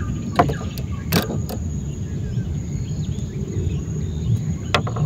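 A few sharp clicks and knocks as fishing rods and tackle are handled in a small boat and a freshly caught prawn is unhooked, over a steady low rumble.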